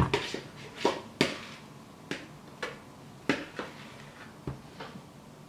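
Scattered light taps and knocks, about eight in all and irregularly spaced, from a plastic mixing bowl and a plastic bottle being handled at a table.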